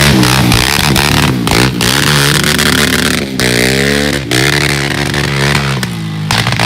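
Suzuki LTZ400 quad's single-cylinder four-stroke engine revved up and down several times, with sharp pops and bangs from the exhaust as the revs fall.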